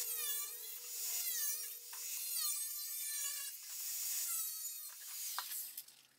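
Cordless Makita angle grinder cutting through a steel car muffler. Its whine dips and recovers about once a second as the disc bites into the metal, then stops shortly before the end.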